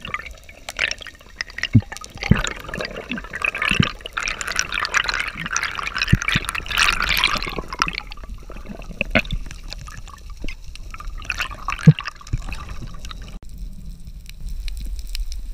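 Underwater camera audio: water rushing and bubbling around the housing, loudest in the first half, with scattered sharp clicks and knocks.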